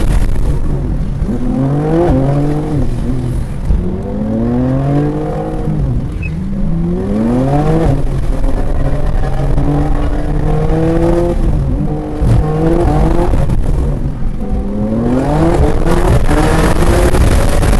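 Twin-turbo straight-six of a 2023 BMW M2 (G87) at full throttle on a wet track, its pitch climbing again and again, about six times, as it accelerates through the gears and out of corners. A heavy rush of wind and road noise is loudest at the start and near the end.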